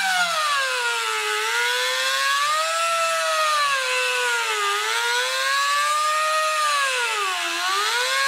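Die grinder spinning a carbide stud sharpening bit at high speed while it sharpens a snowmobile track's carbide stud. Its whine sags in pitch each time the bit bears down on the stud and climbs back as the pressure eases, dipping deepest about a second, four and a half seconds, and seven and a half seconds in.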